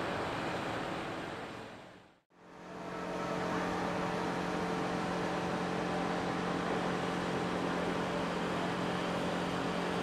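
Steady machinery hum under a broad rush of noise from a docked cruise ship's onboard machinery. It fades out to silence about two seconds in and fades back up a second or so later.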